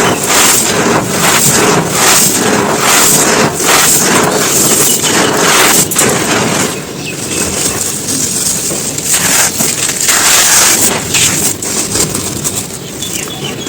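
Dry, brittle chunks crumbling and crunching: a dense, loud run of crackles, easing a little about halfway through and again near the end.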